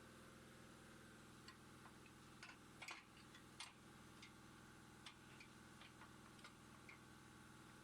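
Near silence: a faint steady hum with scattered light clicks and taps at irregular intervals, a few slightly louder around three to four seconds in.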